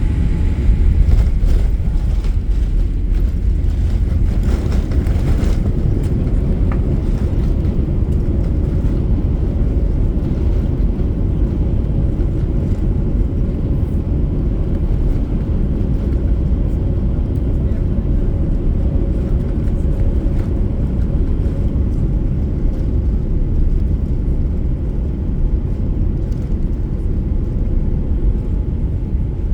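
Airliner landing: a loud, steady low rumble, with a brief swell of hiss about four to six seconds in.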